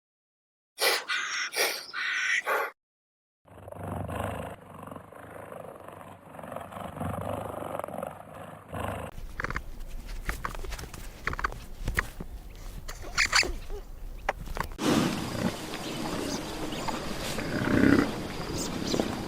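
A few bird chirps, then, after a short silence, a string of wild-animal clips that includes a lion roaring, loudest near the end.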